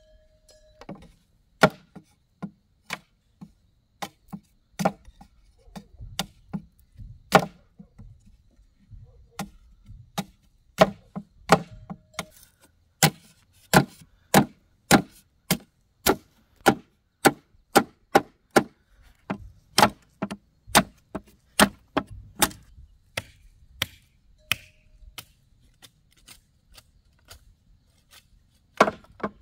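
Repeated chopping strikes of a blade on wood. They come unevenly at first, then steady at about two a second, then thin out to a few strikes.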